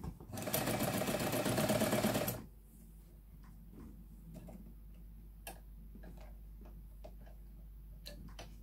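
Electric Jones M949 vintage sewing machine running at speed and stitching for about two seconds, then stopping. After that come scattered light clicks.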